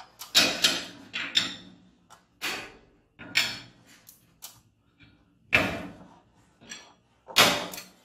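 Garage door hardware being worked by hand: a run of about ten sharp metallic clanks and knocks, roughly one a second, each ringing briefly, with the loudest near the end.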